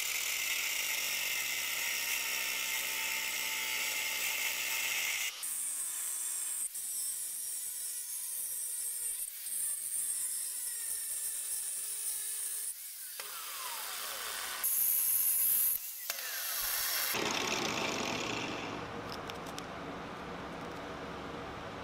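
Angle grinder with a thin cut-off disc cutting through the bronze sprues of a lost-wax casting, a steady high-pitched cutting noise. The sound changes around 5 seconds in, breaks off briefly twice, and turns lower and coarser in the last few seconds.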